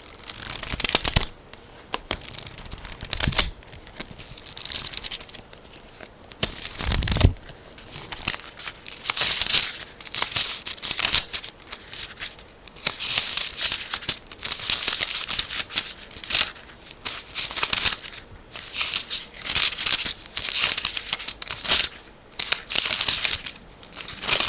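Thin Bible pages being flipped over and over: a long run of quick papery flicks and rustles in clusters, with a few low thumps from handling the book in the first several seconds.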